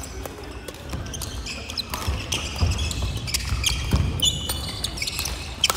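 Badminton rally on a wooden gym floor: repeated sharp racket strikes on the shuttlecock, high squeaks of shoes on the floor and thudding footfalls.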